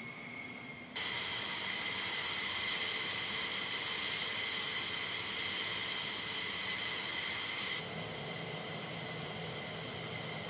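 Fighter jet engines running: a steady high whine over a rushing hiss, abruptly louder about a second in and dropping back a few seconds before the end.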